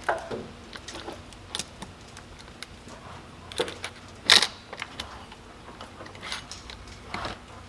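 Chainsaw chain clinking and rattling as it is handled during a chain change: a scattering of small metal clicks, with one sharper clink about four seconds in.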